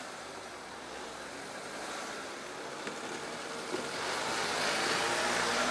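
A van drives across the level crossing toward the listener. Its engine and tyre noise grow louder over the last couple of seconds as it comes close.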